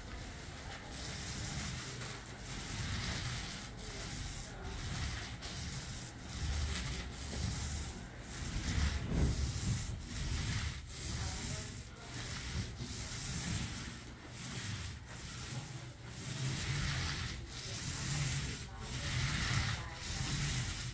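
Paint roller on an extension pole rolling wet ceiling white paint across a ceiling: a rubbing swish that swells and fades with each back-and-forth stroke.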